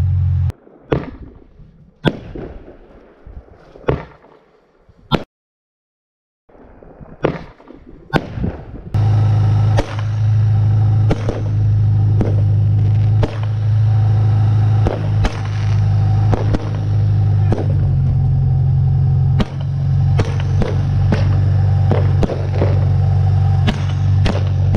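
Fireworks salute shots going off from a launcher: a few separate bangs at first, then from about nine seconds a quick string of shots, about one or two a second, over a loud steady low hum from the machine's motor.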